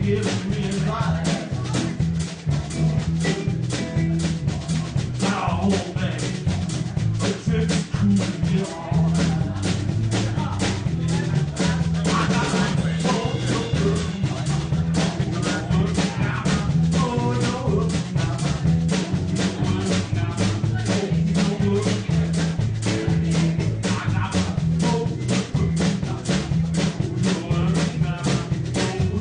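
Blues band playing with drum kit, guitar and a singing voice; the drums keep a steady beat over a bass line.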